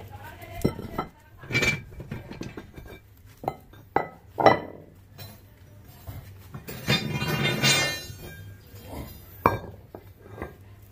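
Metal clinks and knocks of rusty cast-iron weight plates and a threaded steel bar being handled as the plates are taken off, with a longer scraping rattle about seven seconds in.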